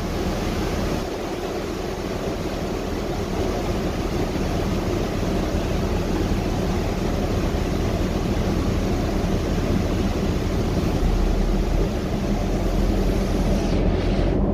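Cabin noise inside a 2014 Gillig Trolley Replica 35-foot hybrid bus under way: a steady drone from the drivetrain and road, growing a little louder and deeper over the last few seconds.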